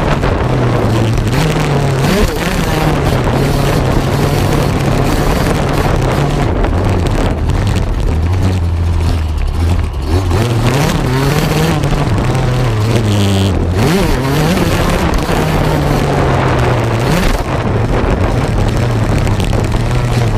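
Yamaha YZ125 two-stroke single-cylinder motocross engine ridden hard, its revs climbing and dropping again and again, with a couple of brief drops in the middle. Heavy wind and rattle noise on the bike-mounted camera.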